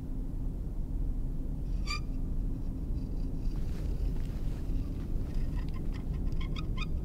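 Low, steady rumbling drone of horror-film ambience. There is one short high squeak about two seconds in, and a run of quick squeaks or creaks over the last second and a half.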